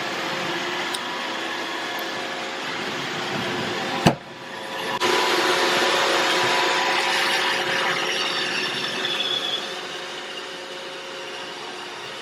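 iRobot Roomba 675 robot vacuum running while it cleans, a steady whir of its vacuum motor and brushes. About four seconds in there is a sharp click. After it the whir is louder for a few seconds, then eases off.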